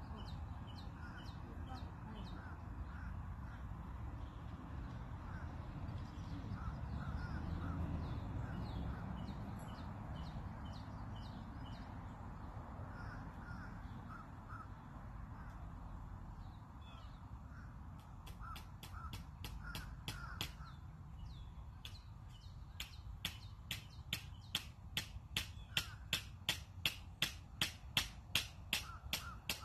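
Birds calling over a low steady rumble; from about two-thirds through, a run of sharp knocks starts, settling into about two hammer blows a second and growing louder, as nails are driven into wood.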